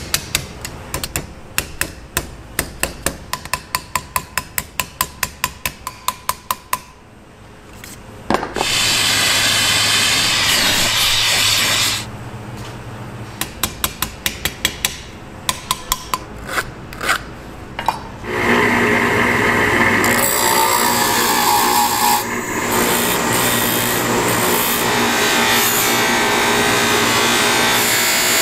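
A thin brass sword fitting is tapped into shape over a steel rod with quick, light mallet and hammer taps, a few a second. A few seconds of loud steady noise break in between the two rows of taps. About two thirds of the way through, a bench buffing wheel starts running steadily as the brass piece is polished against it.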